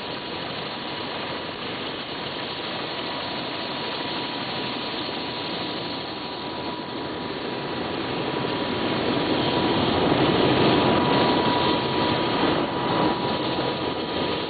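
Helicopter's turbine engine idling on the pad after landing, rotor turning: a steady rushing noise with a thin high whine. It grows louder for a few seconds past the middle, then eases back.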